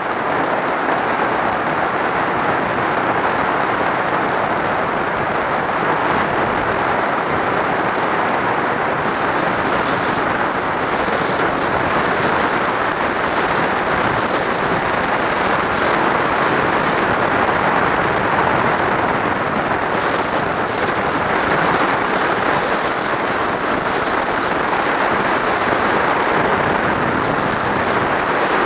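Steady wind rush and road noise of a motorcycle cruising at highway speed, heard through a helmet-mounted camera's microphone.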